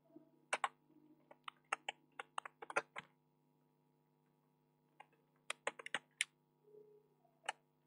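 Typing on a computer keyboard: a run of keystrokes, a pause of about two seconds, then a second short run and one last keystroke near the end.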